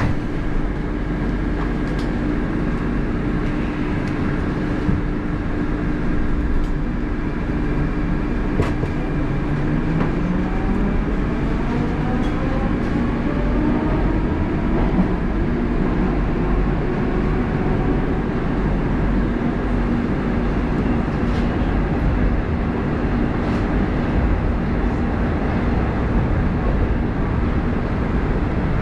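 Inside an 81-740.1 Rusich metro train pulling out of a station into the tunnel: a steady low rumble of wheels on rail, with the traction drive's whine rising in pitch as the train speeds up, about 8 to 14 seconds in. A few sharp clicks sound over the running noise.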